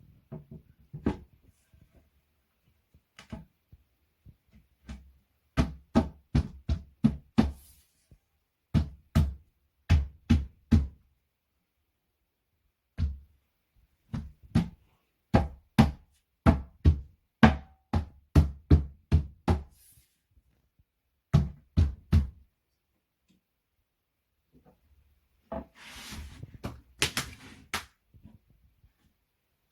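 Hammer tapping on flat-pack furniture panels: quick runs of sharp knocks, about four a second, broken by short pauses. Near the end, a brief rustling scrape.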